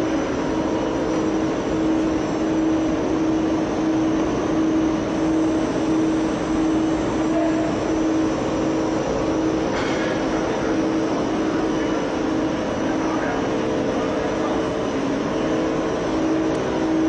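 Steady industrial roar with a droning hum from a gas-fired tunnel kiln's machinery, with a brief hiss about ten seconds in.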